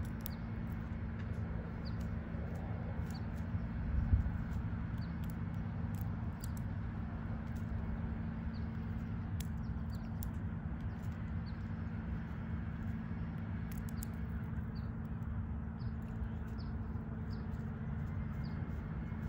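Fox squirrel cracking and chewing sunflower seeds: faint, irregular sharp clicks over a steady low hum, with a single low thump about four seconds in.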